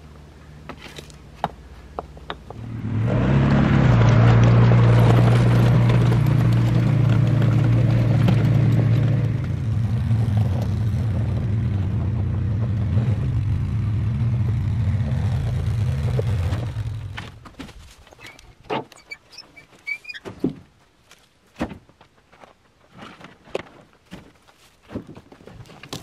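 A vehicle engine running steadily with a low hum. It is louder for the first several seconds, settles a little lower, then stops about two-thirds of the way through. After it, scattered crunches and snaps of goats chewing pine branches.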